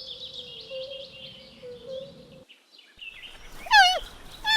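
Birds chirping over a faint steady hum. After a short break, two loud animal calls, each sliding down steeply in pitch, about a second apart.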